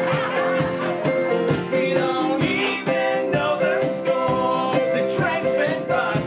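A live band playing a song: sung vocals over guitar with a steady percussion beat.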